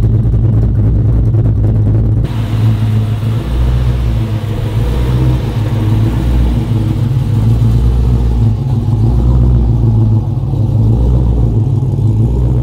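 Pickup truck's freshly built engine with a new cam idling steadily, with a slight chop in the idle, heard at the exhaust.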